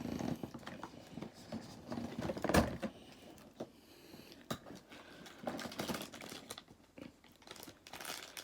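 Cardboard advent calendar packaging being handled and opened by hand: scattered light clicks, scrapes and rustles, with one sharper knock about two and a half seconds in.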